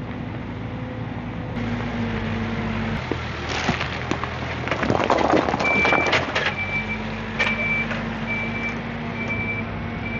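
Diesel engine of a Hyundai heavy machine running steadily, with a loud spell of clattering and scraping in the middle. From about halfway on, its reversing alarm beeps repeatedly at a single high pitch, roughly once a second.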